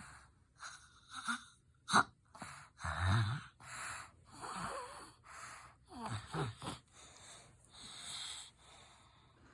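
A young child snoring in his sleep: quick, ragged, noisy breaths about one a second, some with a low rattling snore, the loudest about three seconds in. It is the laboured, obstructed breathing of a 4-year-old whose tonsils a doctor found enlarged.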